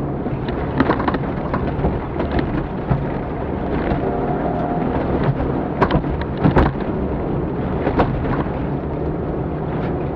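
Off-road rally vehicle driving a stage over rough ground: its engine runs with a steady low drone under loud rumbling road noise, with sharp knocks from the chassis and stones about six, six and a half and eight seconds in.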